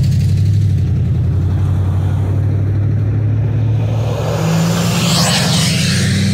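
A large engine running steadily with a deep hum, joined about four to five seconds in by a rising, rushing hiss.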